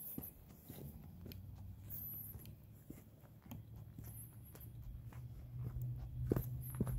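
Irregular crunching steps on a dirt and gravel trail, with a low steady hum coming up about halfway through.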